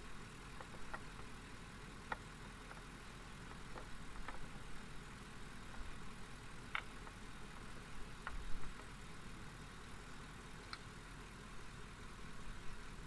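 Pickup truck engine idling faintly and steadily, with a few scattered light clicks and taps over it.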